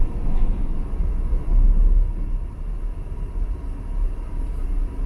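Low, steady rumble of a car's engine and tyres, heard from inside the cabin while driving slowly in traffic.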